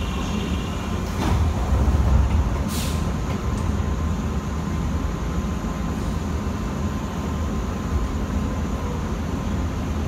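Air-operated passenger doors of a 103 series electric train sliding shut about two seconds in, followed by a short hiss of air just before three seconds, over the steady hum of the stopped car.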